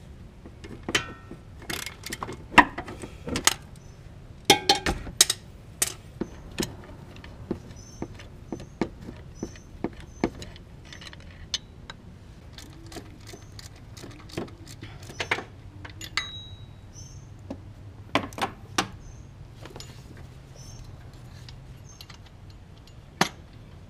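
A hand ratchet on a long extension clicking as a bolt is worked, with metal tools clinking and knocking. The sharp clicks come irregularly, bunched in short runs near the start and scattered after.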